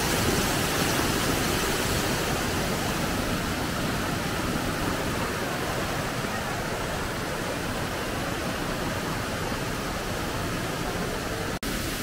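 Steady rushing and splashing of a waterfall heard close by, water pouring over rock into the pool below. It breaks off for an instant near the end.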